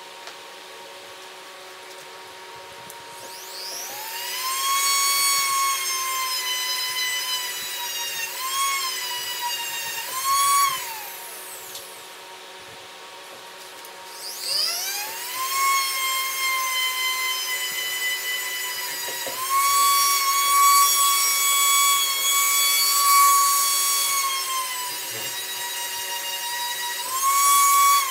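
Handheld rotary tool spinning up to a high, steady whine, its pitch dipping and recovering twice before it winds down. A few seconds later it spins up again and runs on, a little louder in the latter half, winding down right at the end.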